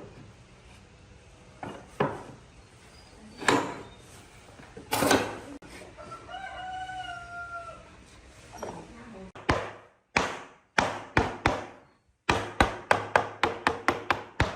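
A rooster crows once about six seconds in, among a few scattered knocks. From about nine seconds on comes a run of sharp hammer blows on wood, quickening to about four a second near the end.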